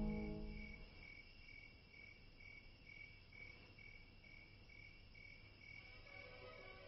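Faint, steady insect chirping, a high note pulsing about three times a second, as background music fades out in the first second and starts to return near the end.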